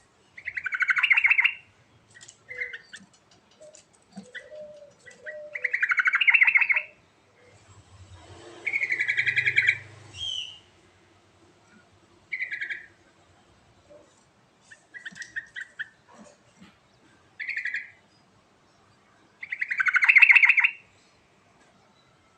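Yellow-vented bulbul (trucuk) singing in full voice: four loud, bubbling phrases about a second long each, with shorter single notes in between and brief pauses.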